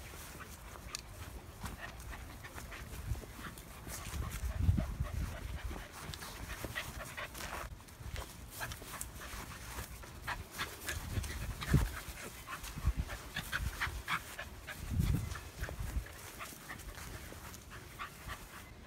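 A corgi panting and scuffling as it plays, with many short scratchy clicks and a few low bumps, near the start, about two-thirds of the way in and again a little later.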